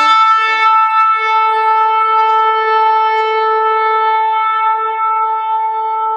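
Shofar blown in one long, steady held note that slowly weakens toward the end.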